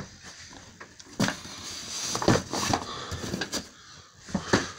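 Objects being handled and shifted about: a few sharp knocks and rustling, busiest in the middle, then a short lull before a last knock near the end.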